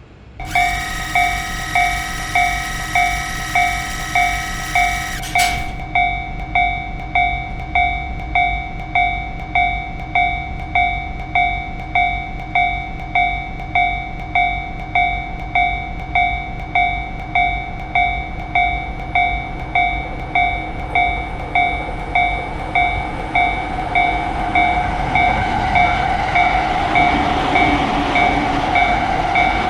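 Japanese railroad crossing's electronic warning bell ringing in a steady rhythm, a little over one ding a second. A separate held tone sounds over it for the first five seconds or so. From about two-thirds of the way in, the rumble of an approaching train grows steadily louder under the bell.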